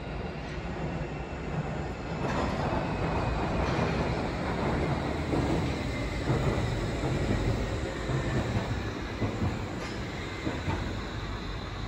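Wuppertal Schwebebahn suspension railway car running along its overhead track: a steady rumble with a faint high whine. It grows louder about two seconds in and eases off toward the end.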